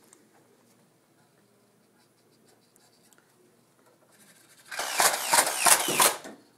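Nerf N-Strike Stampede ECS blaster on an Arduino sentry turret firing a short full-auto burst of darts: a loud motorised run of about six rapid clacks lasting about a second and a half, starting just after a hand passes in front of the turret.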